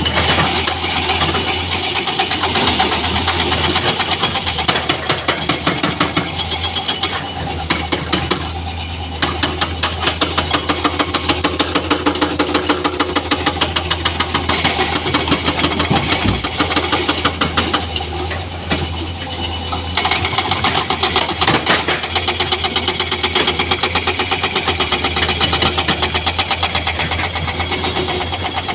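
Heavy diesel engine of construction machinery running steadily with a rapid, even clatter.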